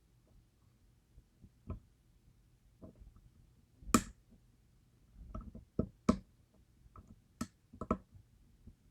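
Small, sharp, irregular clicks and taps of steel lock picks and a turning tool working inside the keyway of a DOM IX Twinstar high-security lock cylinder. The loudest click comes about four seconds in, with a cluster of them from about five to eight seconds.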